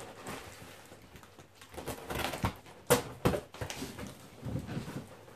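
A utility knife slicing packing tape on a large cardboard parcel, with irregular scraping and a few sharp knocks as the box is handled.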